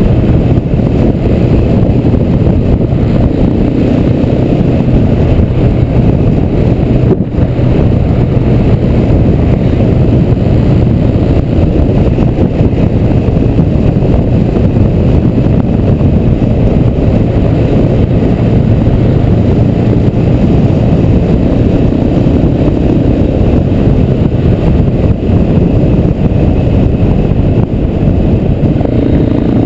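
KTM 690 SMC R's single-cylinder four-stroke engine running steadily at cruising speed, heard from on board the moving bike with wind rush on the microphone.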